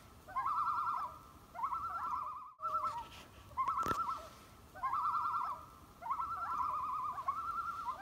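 Common loon tremolo calls: a quavering, wavering call, several phrases of about a second each with short gaps between them, and one sharp click about four seconds in.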